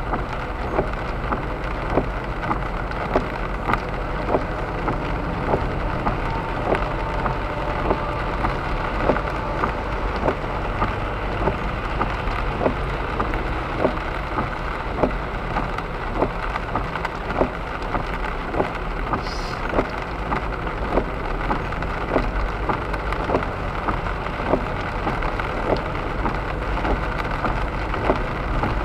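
Rain pattering on the car's windshield and roof, heard from inside the car: a steady hiss with many irregular drop ticks over the low rumble of the car driving on the wet road.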